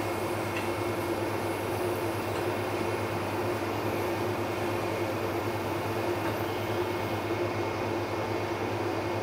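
Steady machine hum: a constant low drone with a faint higher whine, unchanging throughout.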